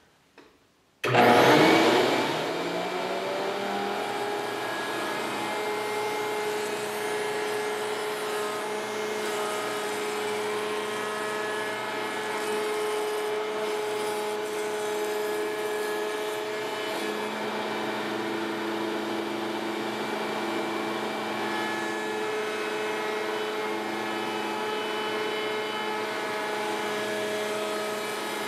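Table-mounted router switching on about a second in with a sudden loud start, then running steadily as a panel is pushed over the bit to cut a shallow rabbet along its edge.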